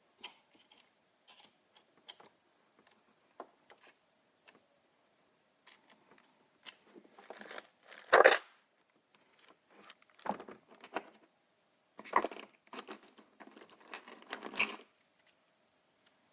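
Scattered clicks and short rustles of small objects being handled, with a louder clatter about eight seconds in and more bursts of rustling later on.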